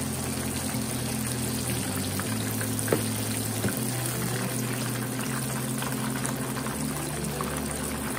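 Battered shrimp deep-frying in hot oil, a steady crackling sizzle, with one sharp click about three seconds in. Soft background music with low bass notes runs underneath.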